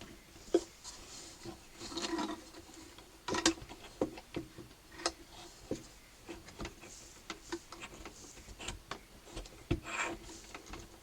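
Irregular light clicks, taps and brief scraping of a metal treble coupler slide in a Hohner Arietta accordion being worked onto its rod and pushed into the reed block by hand. The sharpest clicks come about three and a half seconds in and near the end.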